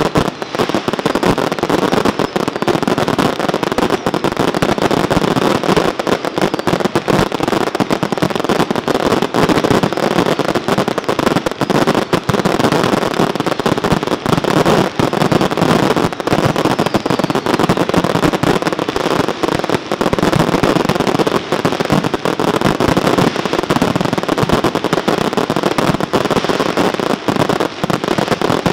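A rapid fireworks barrage: many bursts and crackles firing so close together that they run into one another with no pause.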